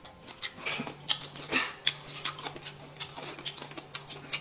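Close-up eating sounds: wet chewing, sucking and slurping of noodles and chicken feet in quick irregular bursts, with chopsticks clicking against a plate.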